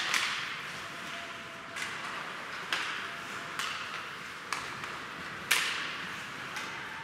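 Ice hockey play in an echoing rink: a series of sharp clacks of sticks on the puck and ice, about eight in all, the loudest at the start and about five and a half seconds in.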